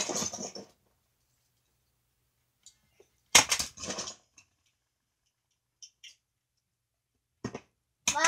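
Toy cars clattering and clicking against each other and the plastic storage bin as they are rummaged through. The sound comes in a few short bursts, the loudest about three seconds in.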